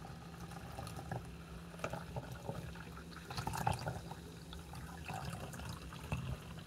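Sparkling water poured from an opened can into a plastic cup, trickling and splashing in an uneven stream.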